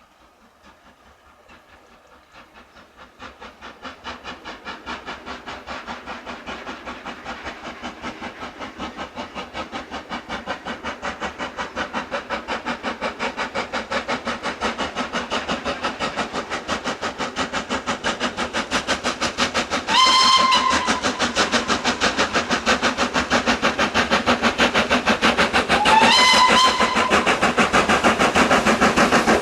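A steam locomotive working hard as it approaches, its rapid exhaust beats growing steadily louder. It sounds its whistle twice, two short blasts a few seconds apart, each sliding up in pitch as it starts.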